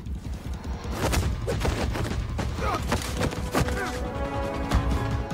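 Fight-scene soundtrack: a quick run of hits, thuds and scuffles over dramatic score music, with a sustained chord swelling in about four seconds in.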